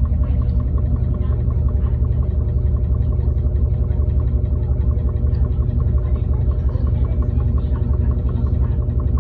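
Cônsul CWH11 11 kg washing machine running with a steady low rumble and a fast, even pulsing rattle, the sound of the machine shaking hard, which the owner finds not right.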